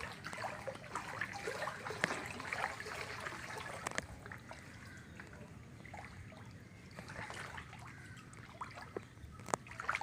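Floodwater trickling and splashing, with scattered small clicks; busier in the first few seconds, quieter in the middle, and picking up again near the end.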